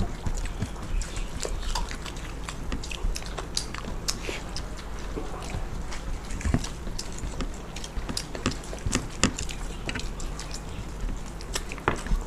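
People eating chicken biryani by hand: chewing with many small wet mouth clicks and smacks, scattered irregularly, over a low steady hum.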